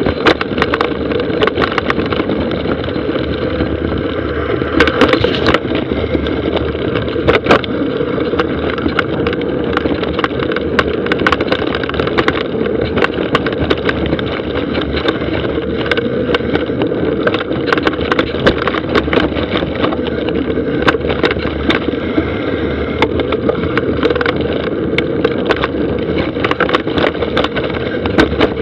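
Mountain bike rolling downhill over a dry dirt trail, heard from a camera riding on the bike or rider: steady tyre and rolling noise with frequent sharp rattles and clacks as the bike goes over bumps, roots and rocks.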